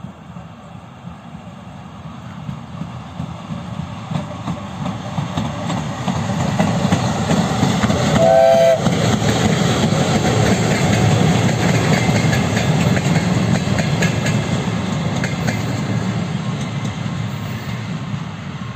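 A VL8m electric locomotive hauling a short train (rail-welding machine, boxcar and passenger coach) goes by at close range. The wheels rumble and clatter on the rails, growing louder as it nears, then easing off as the cars pass. About eight seconds in, a short horn blast sounds as a brief chord.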